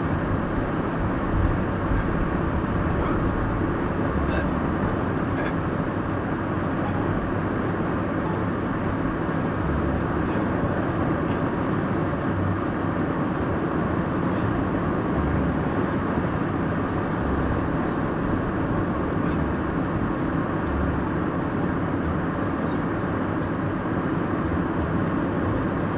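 Steady road and engine noise of a car being driven, heard from inside the cabin, with a low rumble coming and going underneath.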